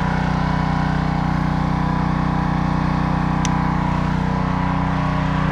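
Small gas engine of a 3000 psi pressure washer running steadily at a constant speed, with an even low hum and no change in pitch.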